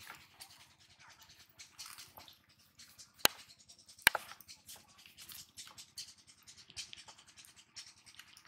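Close rustling and scratching as fishing gear is handled, with two sharp clicks about three and four seconds in.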